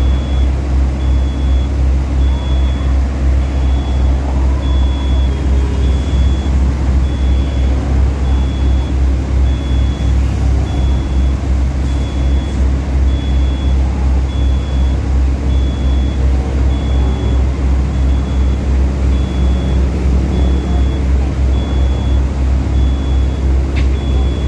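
Heavy tracked construction machine's engine running steadily with a deep, pulsing throb, over a high warning beep that repeats about once a second.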